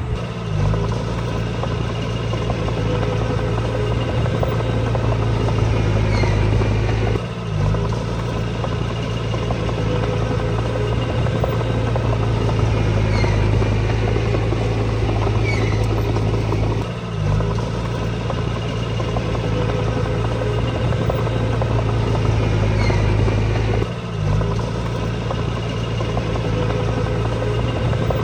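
Diesel engine of heavy earthmoving equipment running steadily under work, a constant low drone. It dips briefly three times, about 7, 17 and 24 seconds in.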